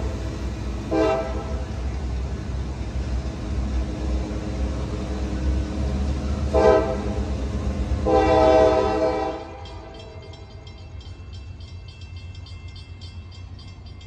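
Diesel freight locomotive's air horn sounding at a grade crossing: two short blasts and then a longer one of about a second and a half, over the low rumble of the train moving off. About nine and a half seconds in the sound drops suddenly to a much quieter background with faint regular ticking.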